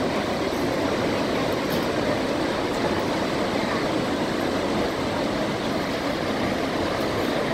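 Niagara Falls: the steady, unbroken rush of a huge volume of water falling over the crest, a dense even noise weighted toward the low-middle range.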